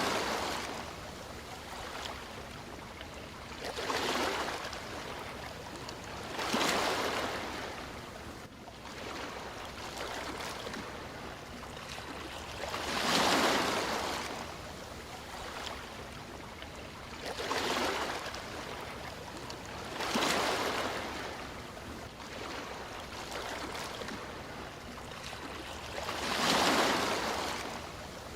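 Sea waves washing in, a swell of surf hiss every few seconds, about seven in all, over a steady background wash of water.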